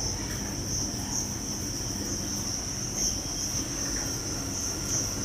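Crickets trilling steadily in the background: one continuous, high-pitched chirr.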